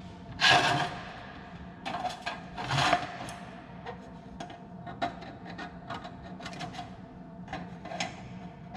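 Metal combination square being handled and adjusted against sheet metal: two brief scraping clatters in the first three seconds, then a run of light clicks and taps.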